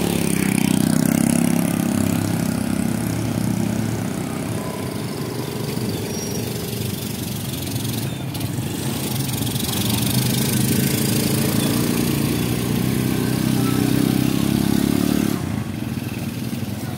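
A vehicle engine running on the move, with wind and road noise over it. The engine pulls harder in the first couple of seconds and again from about ten to fifteen seconds in, then eases off suddenly.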